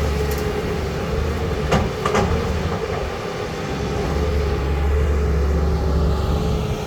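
Caterpillar 320 hydraulic excavator's diesel engine running under working load. A couple of sharp knocks come about two seconds in. The engine's low hum eases briefly and then builds again from about four seconds.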